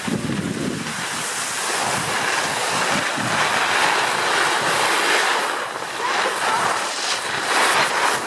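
Skis hissing and scraping over packed snow on a downhill run, with wind rushing over the microphone: a steady rushing hiss.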